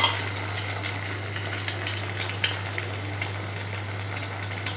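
Whole eggs frying in hot oil with sliced onions in an aluminium kadai: a steady sizzle, with a sharp tap at the start and another about two and a half seconds in.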